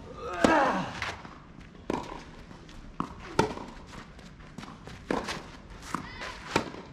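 Tennis rally: a serve struck with a grunt about half a second in, then a string of sharp pops from racket strings hitting the ball and the ball bouncing, roughly every half second to a second.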